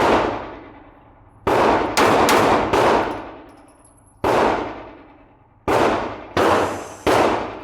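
Handgun shots, about nine in irregular groups, each sharp crack trailing off in a reverberant ring.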